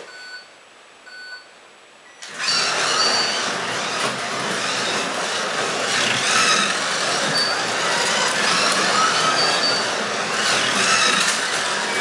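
Two short beeps of the start countdown, then, about two seconds in, Carrera Digital 1/24 Ferrari P4 slot cars pull away. Their small electric motors whine, rising and falling in pitch over a loud, steady noise of the cars running on the plastic track.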